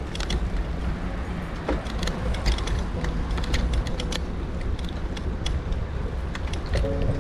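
Bicycle rolling over paved paths: a steady low rumble of tyres and wind, with frequent light clicks and rattles from the bike.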